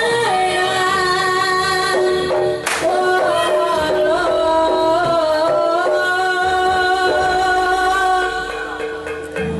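East Javanese jaranan (horse-dance) music: a held, bending melody line over the ensemble, with one sharp crash about three seconds in.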